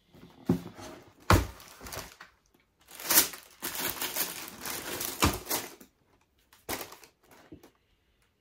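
Packaging being handled: a series of sharp knocks and clicks, with a longer stretch of rustling and crinkling from about three to six seconds in.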